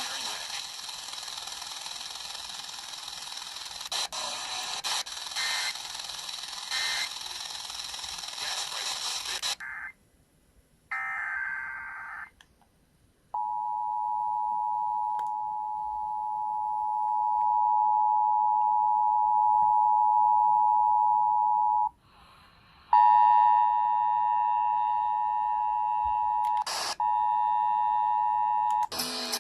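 Radio static hiss for about ten seconds, then a brief burst of warbling EAS SAME header data tones, followed by the Emergency Alert System two-tone attention signal held for about eight seconds. After a short break the attention signal sounds again, harsher with added higher tones, cut by a click near the end.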